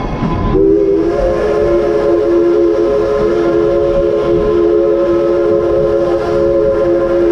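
Steam locomotive's chime whistle blowing one long blast. Several tones sound together, starting about half a second in and held steady.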